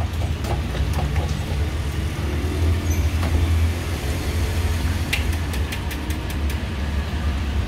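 Steady low motor rumble, with a quick series of light clicks about five seconds in.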